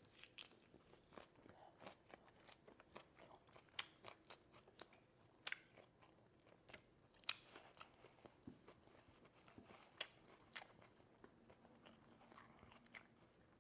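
Close-up chewing and crunching of air-fried spring rolls wrapped in mustard-green leaves: quiet, irregular crunches and bites, a few louder ones scattered through.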